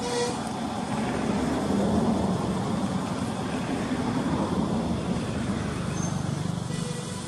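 Rumble of a passing motor vehicle, swelling over the first two seconds and easing off near the end.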